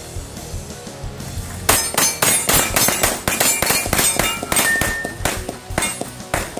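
Rapid pistol fire at steel targets, the shots coming in quick strings from about two seconds in, with the steel plates ringing as they are hit; one ring hangs on clearly for about half a second near the five-second mark.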